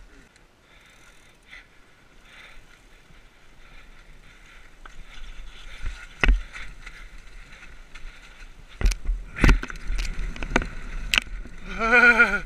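Mountain bike descending a dirt forest trail, recorded from a helmet camera: wind and tyre noise build up from a quiet start, with the bike rattling and several sharp knocks as it hits bumps. A brief wavering pitched squeal near the end, then the sound cuts off.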